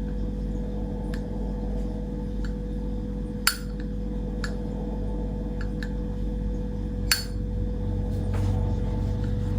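Zippo lighter handled on camera: two sharp metallic clinks, about three and a half seconds in and again about seven seconds in, like the lid snapping open and shut, with fainter ticks from handling the metal case. A steady hum runs underneath.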